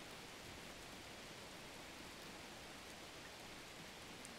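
Faint steady hiss, even and unchanging, with no distinct sounds in it.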